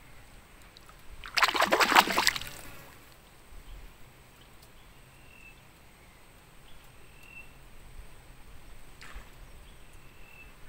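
A short splash of water beside a small wooden boat, about a second long and starting a little over a second in, over a quiet open-air background. Three faint short high notes sound later on.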